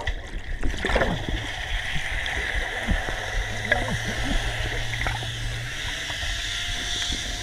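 Water gurgling and churning around a microphone held under water, with an even hiss and a few small knocks. A low steady hum comes in about three seconds in and stops before six.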